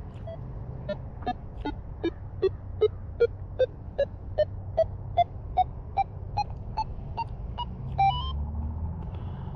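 Nokta Legend metal detector's speaker giving a run of about twenty short beeps, about two and a half a second, each a step higher in pitch, ending in a brief higher tone near the end. The detector's audio is working for the moment, during a fault in which its sound keeps cutting out.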